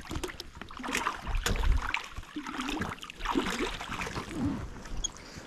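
A small metal spinner fishing lure being swished and rinsed in water by hand, sloshing and splashing in two bursts.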